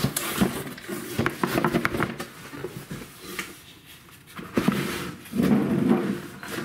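A wooden storage box being slid out of its cardboard shipping box: cardboard scraping and rustling, with several light knocks and taps of wood against cardboard, most of them in the first couple of seconds.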